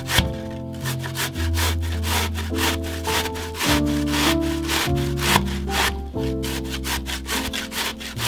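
Zucchini rasped up and down on a stainless steel box grater in quick, repeated strokes, several a second, with background music playing underneath.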